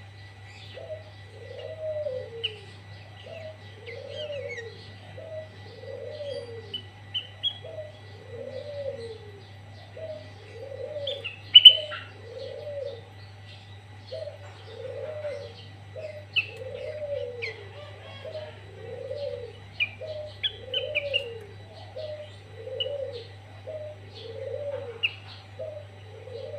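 Sooty-headed bulbuls calling: short, sharp high chirps and brief whistled phrases, with one loud chirp about eleven seconds in, over a low note that rises and falls, repeated about once a second.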